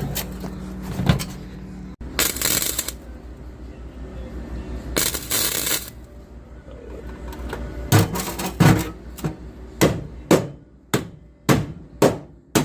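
Two short bursts of hissing noise, about a second each, then a run of about ten sharp metallic blows, roughly one every half second to second, from a hammer on the sheet-metal floor patch of a car.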